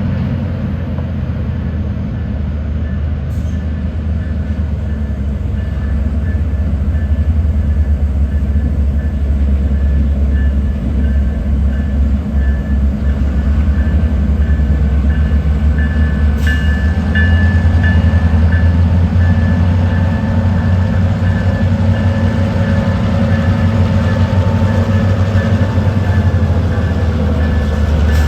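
Union Pacific GP38 diesel-electric locomotive's EMD 16-645 two-stroke V16 running with a steady low rumble and a thin high whine above it, getting louder about six seconds in and again around seventeen seconds.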